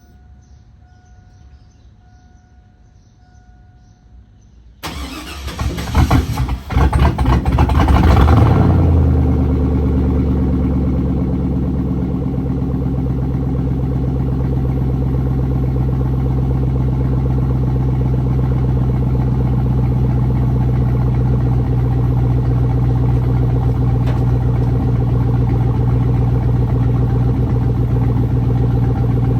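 Chevrolet Silverado's straight-piped 4.8 L V8 cranking and firing up about five seconds in, rough and loud for a few seconds, then settling into a steady idle.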